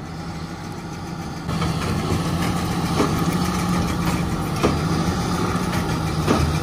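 John Deere tractor engine running steadily as it pulls a New Holland BB9060 large square baler that is working. The hum gets louder about a second and a half in, and a regular knock comes about every one and a half seconds from the baler's plunger packing the bale.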